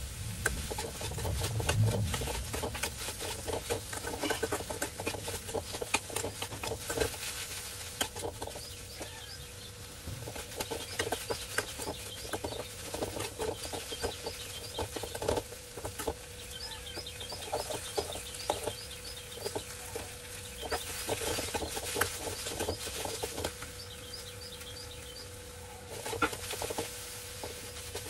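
Metal spatula scraping and knocking irregularly against an aluminium kadai as okra is stir-fried, over a faint steady hum. Small birds chirp in the background through the middle stretch.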